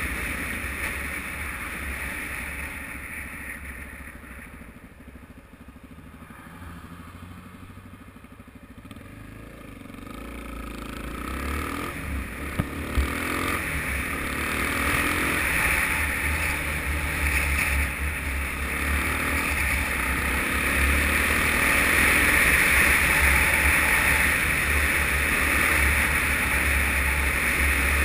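Suzuki DR-Z single-cylinder four-stroke motorcycle engine riding along with wind rushing over the camera; it eases off and goes quieter a few seconds in, then picks up speed again with the engine note rising, the wind growing louder as the bike speeds up.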